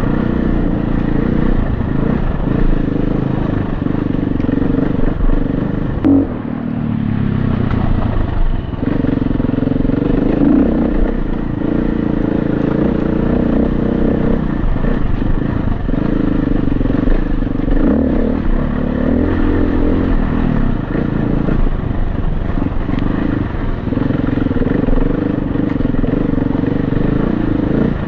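Honda CRF250X four-stroke single-cylinder dirt bike engine running on the throttle, its revs rising and dropping again and again as the throttle is opened and rolled off, with a brief dip about six seconds in.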